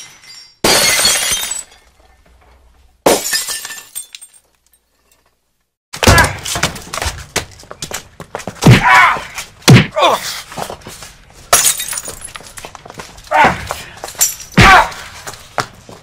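Stock movie fight sound effects: two short bursts of breaking and shattering, a pause of about two seconds, then a fast run of hits and thuds.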